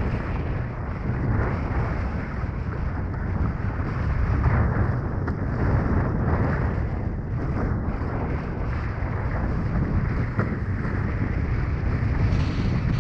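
Wind buffeting the microphone over water rushing and splashing along a sailing dinghy's hull as it sails through chop, with short slaps of spray now and then.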